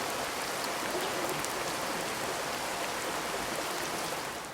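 Steady rain falling: an even hiss with scattered drop ticks, dropping away near the end.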